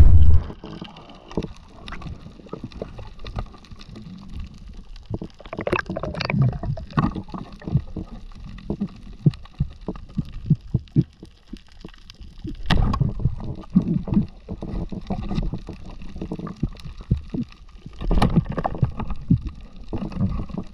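Underwater sound heard through an action camera's housing: muffled, uneven surges of sloshing and gurgling water with many scattered sharp clicks. A loud thump comes right at the start.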